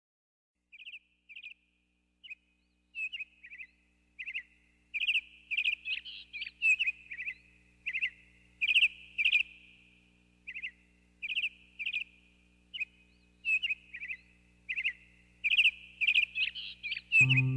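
Small birds chirping: short, quick trilled chirps, a few at first and then a steady busy run of them, several birds overlapping. Music comes in just at the end.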